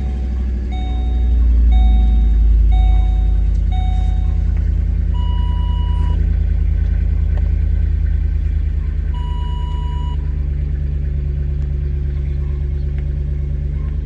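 Ford Explorer 4.6-litre three-valve V8 with a Flowmaster exhaust idling just after a cold start: a little louder about two seconds in, then settling into a steady idle. A dashboard chime beeps five times in the first few seconds, and two longer, higher chimes sound later.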